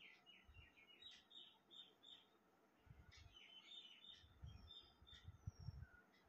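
Faint birds chirping: quick runs of short high chirps, several a second, in two spells, with a couple of thin falling whistles later on. A low, uneven rumble sits underneath.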